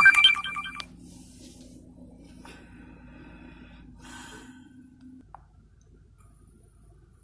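A man snoring: one loud, harsh snore in the first second, then softer breaths about 2.5 and 4 seconds in.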